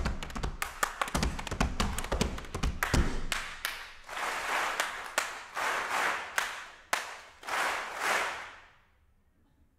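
A body-percussion performer claps and stomps a fast rhythm: dense sharp hand claps over heavy thuds for the first three seconds or so. Then a large audience claps back in several short bursts of massed clapping, before the sound stops near the end.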